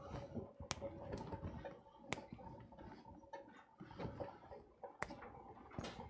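Faint, scattered clicks and ticks as fresh sage leaves are plucked off their stems by hand and dropped into a pan of butter and cream, over a faint steady hum.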